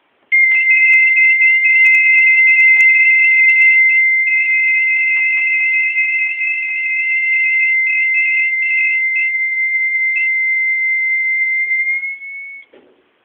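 Homemade seismic alarm going off after being shaken: a loud, steady high electronic tone with a warbling higher tone over it that breaks off now and then. It rises slightly in pitch and cuts off suddenly near the end.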